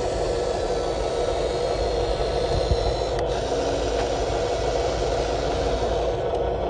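Electric gear motors of a radio-controlled toy excavator and dump truck running, a steady whirring with some rattle. A faint steady hum comes in after about three seconds and drops out near the end.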